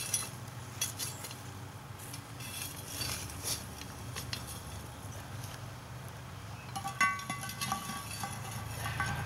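Charcoal briquettes being scraped up from a fire pit with a small metal shovel and tipped onto a cast-iron Dutch oven lid. Repeated clinks and knocks of coals on metal, with a short ringing clang about seven seconds in as a shovelful lands on the lid.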